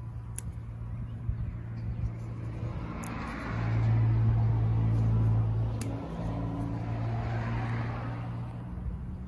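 A motor vehicle's engine running close by, a steady low hum that swells in loudness for a couple of seconds in the middle, with a rush of road noise rising and falling twice.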